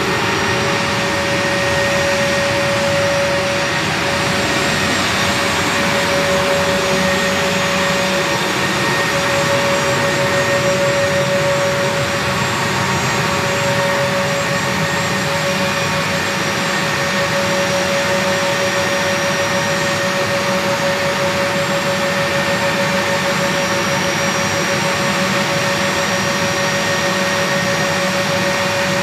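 Twin General Electric TF34 turbofan engines of an A-10 Thunderbolt II running steadily on the ground: an even rushing noise with a steady high whine that holds the same pitch throughout.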